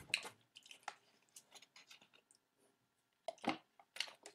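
Soft scattered clicks and mouth noises of chewing, then drinking from a plastic water bottle near the end.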